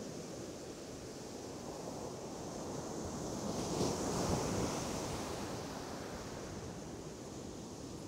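Sea surf washing on the shore: a steady rushing hiss, with one wave swelling and breaking about halfway through before easing off.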